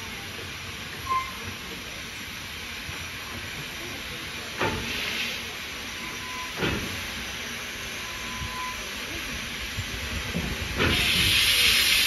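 Steam locomotive, BR Standard Class 4 4-6-0 No. 75069, standing in steam on a turntable: three sharp knocks and a short hiss of steam, then a loud, steady release of steam hiss starting near the end.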